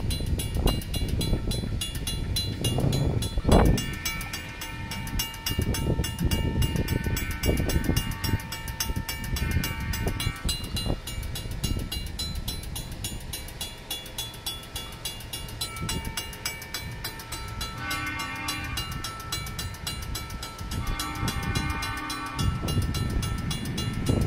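Safetran mechanical railroad-crossing bell ringing in rapid, even strokes while the crossing is activated, with gusts of wind rumbling on the microphone. A horn sounds twice near the end from the approaching Union Pacific maintenance-of-way vehicle.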